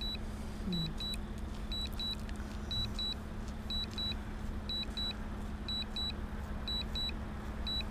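Drone remote controller sounding its return-to-home alert: short high double beeps repeating about once a second, over a low steady hum and rumble.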